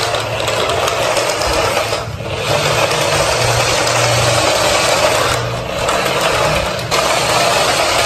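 Remote-control toy garbage truck's small electric motor and plastic gears whirring steadily as it drives across a tiled floor. The whir dips briefly about two seconds in and twice more later on, as the truck eases off or changes direction.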